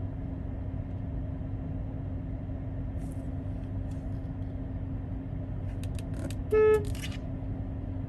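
A car horn sounds once, a short beep about two-thirds of the way in, heard from inside the car over a steady low rumble.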